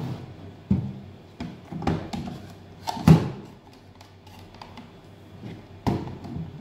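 12 V sealed lead-acid UPS batteries being pushed into and lifted out of a plastic battery tray, making several knocks and thuds. The loudest comes about three seconds in, and another near the end.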